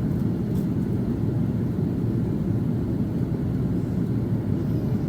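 Steady low rumble of engines and airflow heard inside the passenger cabin of an Airbus A330-300 powered by two General Electric CF6-80E1 turbofans, during the climb after takeoff.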